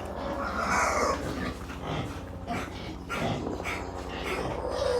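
An animal calling several times in short, irregular bursts over a steady low hum.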